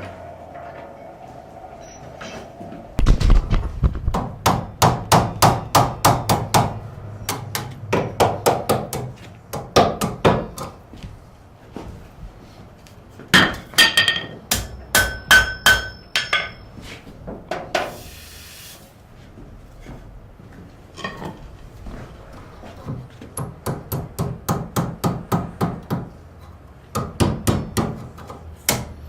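Blacksmith's hammer striking metal on an anvil in quick runs of blows, about three or four a second, with short pauses between runs. In one run the blows ring out with a clear metallic ring.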